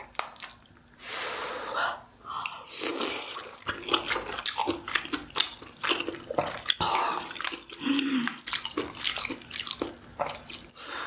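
Close-miked wet eating sounds: a person chewing a dumpling from a kimchi dumpling hot pot, with many mouth smacks and clicks and a few short hissing bursts.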